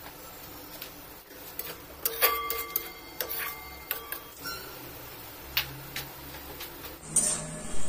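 Metal spatula knocking and scraping against a metal kadai while stirring a wet mince-and-dal mixture, a scatter of irregular clicks, some ringing briefly, most of them a couple of seconds in.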